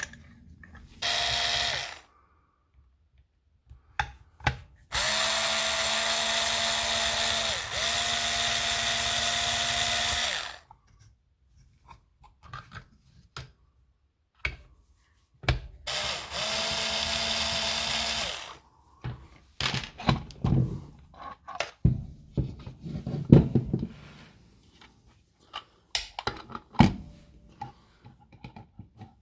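Cordless drill/driver running in three bursts at a steady speed: a short one near the start, a long one of about five seconds, then one of about three seconds. In the last part come scattered clicks and knocks of small parts being handled.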